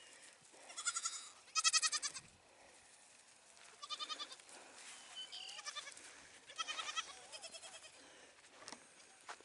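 Young goat kids bleating: several short, high, quavering bleats, four of them clearer than the rest, with quiet gaps between.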